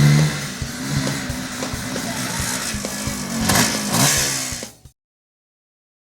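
Vehicle engine sound effect revving up and down, with rapid clattering clicks, that cuts off abruptly about five seconds in.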